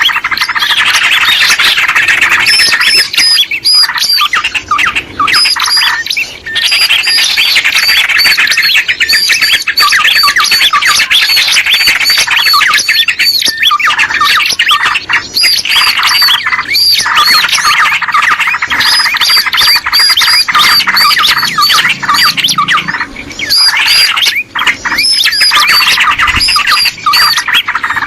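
Small birds chattering with dense, overlapping rapid chirps and squeaky calls, continuous with only brief dips: a bird lure call (pikat) used to draw small birds in.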